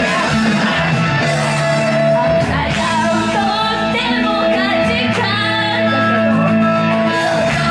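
A young woman sings into a handheld microphone over loud pop-rock music, her voice amplified through the venue's sound system.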